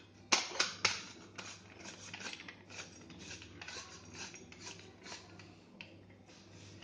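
Stainless steel murukku press being assembled and its threaded handle worked: two sharp metal clinks in the first second, then a run of soft metal clicks and scraping.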